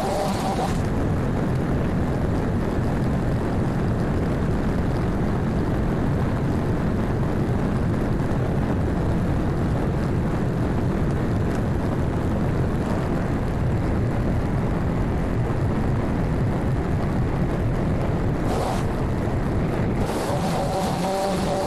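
Small two-stroke engine of a gas pole saw running steadily: a rough, unbroken drone.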